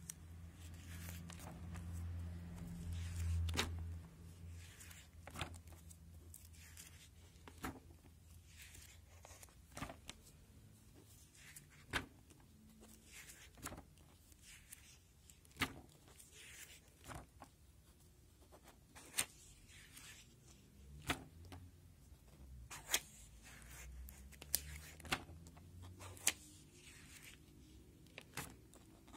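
Clear plastic sleeves of a binder album crinkling and swishing as pages are turned, with a sharp click about every two seconds. A low rumble runs under the first few seconds.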